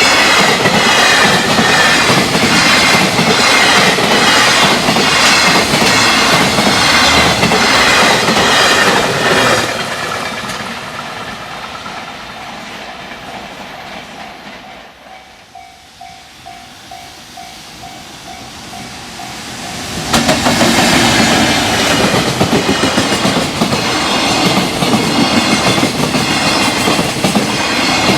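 Freight train passing at speed, its wagon wheels clattering in a steady rhythm over the rail joints. The clatter fades away about a third in, leaving a level-crossing bell ringing in even strokes, until a second train's clatter comes in loudly about two thirds in.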